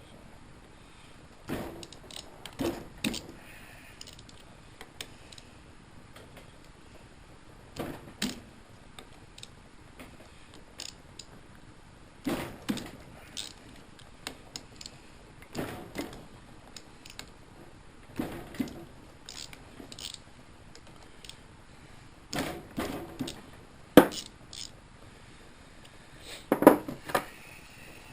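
Intermittent clinks and clunks of hand tools and metal engine parts being handled during disassembly, with one sharp metallic knock about two-thirds of the way through.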